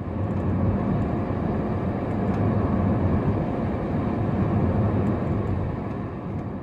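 Steady road noise of a moving car, tyres and engine, heard from the vehicle.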